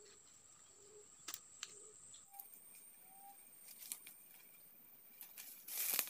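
Faint wild birds calling in forest: a soft low note repeated about once a second, then two short higher calls, the second rising slightly. A few twig snaps, and leaves rustling near the end as branches are handled.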